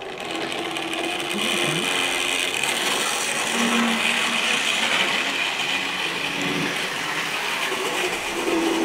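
Tri-ang Hornby OO gauge Hymek diesel model locomotive hauling Freightliner container wagons along the track: a steady whir of its electric motor and wheels on the rails.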